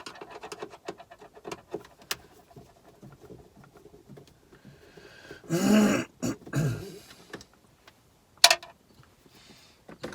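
Small clicks and scrapes of a T20 Torx screwdriver working screws out of plastic dashboard trim. About six seconds in comes a louder grating sound, and a sharp click follows near the end.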